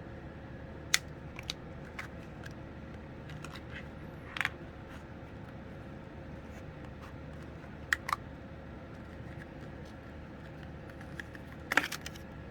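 Scattered sharp clicks and taps from hands working on a laptop, two of them in quick succession near the middle and a louder cluster near the end, over a steady faint hum.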